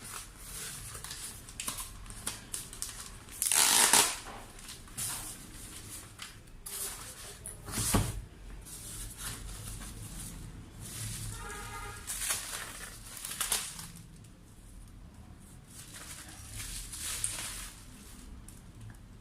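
Monitor packaging and accessories being handled and unpacked: intermittent rustling with light knocks, the loudest rustle about four seconds in and a sharp knock about eight seconds in.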